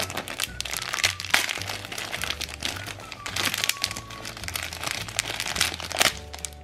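Thin plastic packaging crinkling and crackling irregularly as small sachets of Orbeez beads and their clear plastic bag are handled, over background music.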